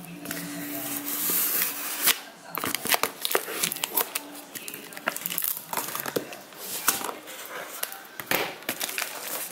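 Scissors snipping through clear plastic wrap and packing tape on a cardboard box, with crinkling plastic and sharp clicks of the blades. Near the end the tape and wrap are gripped and torn away from the box.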